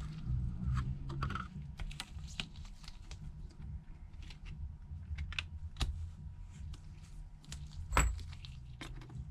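Irregular small clicks and taps of precision repair tools and tiny metal parts being handled while reassembling a phone, over a low steady hum.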